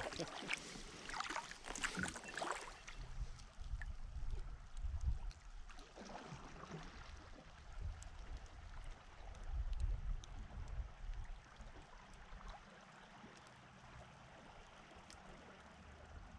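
Kayak paddling on a river: soft paddle splashes and trickling water, with irregular low rumbles in the first ten seconds or so.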